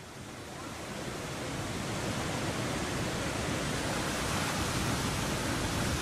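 Heavy sea surf breaking on a rocky shore with wind, a steady rushing noise that fades in and grows louder over the first couple of seconds.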